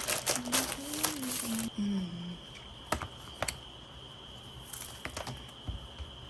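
Plastic wrapping crinkling for the first couple of seconds, then a few separate sharp clicks as a clear plastic tablet case is pressed and snapped onto an iPad.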